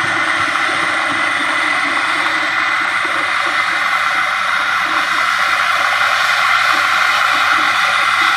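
Combine harvester running steadily, a constant loud mechanical drone of engine and machinery with no change in pitch or load.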